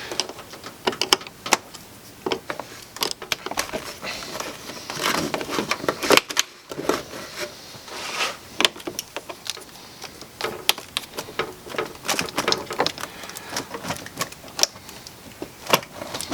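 Irregular clicking and rattling of hard plastic as hands work at a car's interior fuse panel and its cover, with a brief break about six seconds in.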